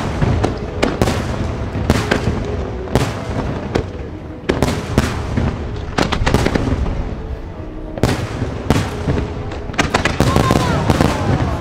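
Aerial fireworks bursting in quick, irregular succession: many sharp bangs and crackles following close on one another, with a denser flurry near the end.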